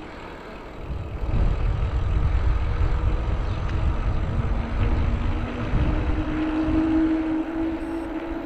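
Wind buffeting an action camera's microphone on a moving mountain bike, with the bike rolling on pavement. A steady hum joins about halfway through, steps up in pitch and grows stronger, then holds.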